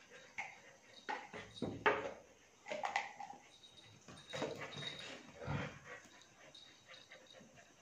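A German Shepherd puppy and a Border Collie playing tug with a toy, making a run of short, irregular dog sounds.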